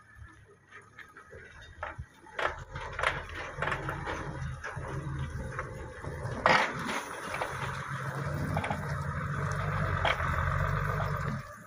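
An engine running steadily and slowly growing louder, with scattered knocks and scraping in the first few seconds and a sharp knock about midway.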